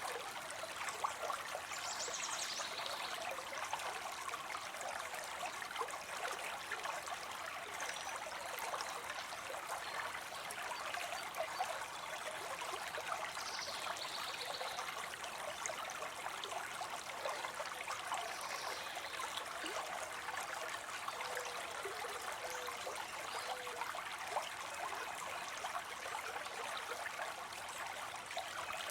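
Water spilling steadily into a pond: a continuous trickling, splashing flow of falling water.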